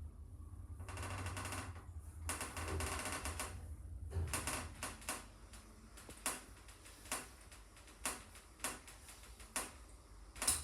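Passenger lift machinery running with a steady low hum. Two bursts of rapid rattling clicks come in the first few seconds, then separate clicks and knocks about once or twice a second.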